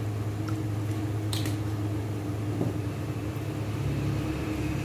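Steady low mechanical hum in a kitchen, with one sharp click about a second and a half in.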